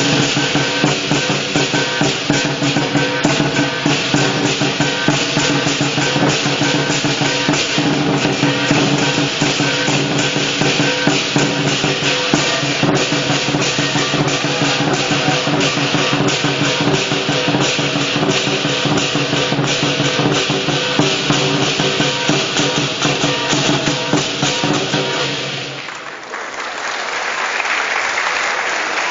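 Lion dance percussion band (large drum, cymbals and gong) playing a fast, dense, continuous beat, with the cymbals and gong ringing throughout. It stops about 26 seconds in, and applause follows.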